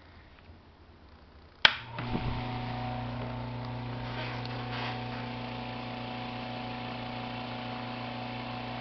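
A sharp click about one and a half seconds in, then a salvaged industrial-fridge fan motor starts and drives a propeller, running with a steady electric hum and rush of air.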